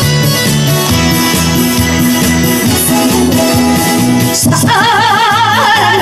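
Recorded instrumental backing music played through a PA loudspeaker; about four and a half seconds in, a woman starts singing into a microphone over it with strong vibrato.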